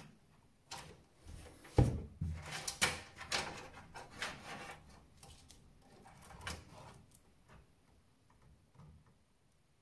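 Hands working inside a desktop PC case: a run of knocks, clatters and rustles as cables and parts are moved, with a sharp thump about two seconds in, dying away after about seven seconds.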